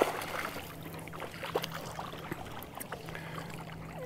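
Small fishing boat on the water: a low steady hum that fades out for a moment and returns, with scattered light clicks and knocks as a spinning reel is cranked to bring in a hooked fish.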